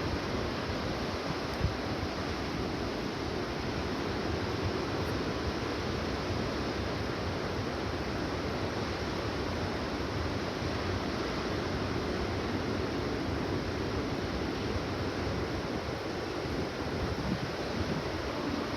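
Steady hiss and wash of small surf waves breaking.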